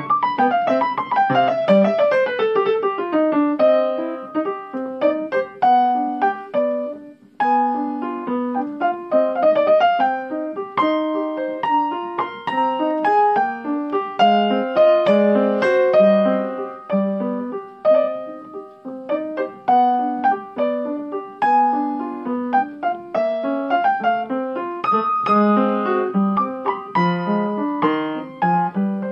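Upright piano being played: a quick falling run of notes over the first few seconds, then a steady flow of notes, with a brief break about seven seconds in.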